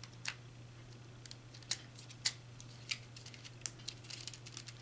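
Sharp plastic clicks and taps from a magnetic contactor and its clip-on auxiliary contact block being handled, about half a dozen spread out with a quicker cluster near the end.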